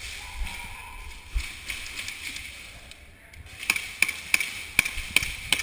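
Airsoft rifle firing a quick string of about six sharp semi-automatic shots, roughly three a second, starting past the middle. Before the shots there is rustling with a few dull thumps.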